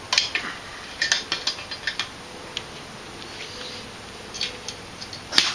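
Scattered metallic clinks and clicks from steel parts and tools being handled, such as the MIG welder's ground clamp being set back on the seat frame. The clinks come in a cluster at the start, fall quiet, then return near the end, where the loudest one is.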